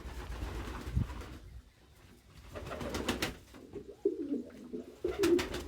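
Domestic pigeons cooing, starting about four seconds in. Before that come short rushes of scuffling noise and a single thump.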